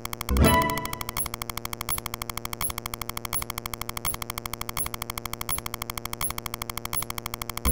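Electronic sound effect: a fast, even pulsing at about ten a second with faint high pings. A loud metallic clang with ringing tones sounds about a third of a second in and dies away over about a second, and starts again just at the end.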